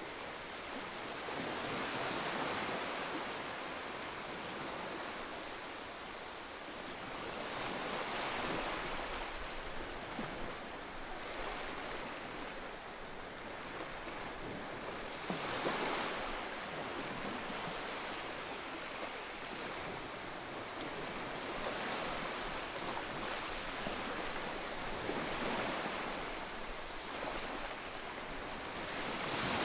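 Ocean waves breaking and washing on a shore, a steady rushing that swells with each wave every few seconds, the strongest surge about halfway through.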